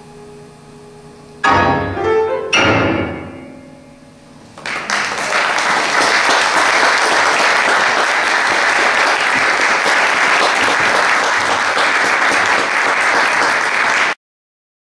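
A grand piano's held notes fade, then two loud closing chords about a second apart ring and die away. A couple of seconds later an audience breaks into steady applause, which cuts off suddenly near the end.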